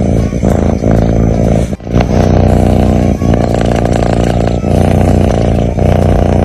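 A sleeping cat's loud, rumbling breathing close to the microphone, going on through each breath with short breaks about every one to one and a half seconds.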